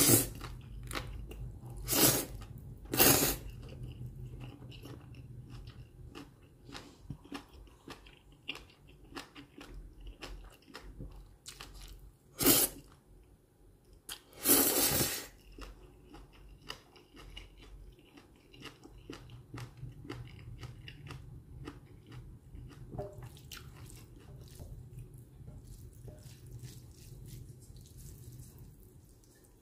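Close-miked eating: several loud slurps of jjajang ramen noodles, the longest about halfway through, with wet chewing between.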